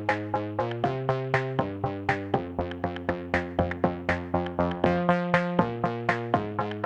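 Background electronic music: synthesizer notes over a steady drum-machine beat.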